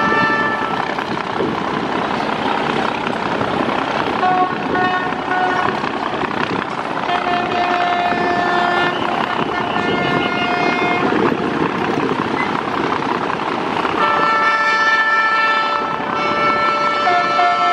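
Horns of big river passenger launches sounding in several long held multi-note blasts over a steady rush of bow-wave water and engine noise.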